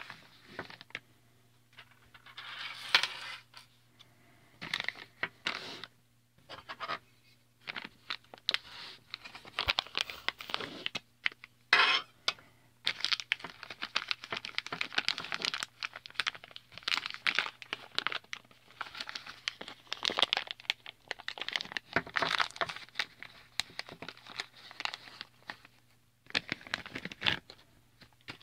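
Clear plastic bag crinkling and rustling in the hands in irregular bursts with short pauses, as it is handled and opened.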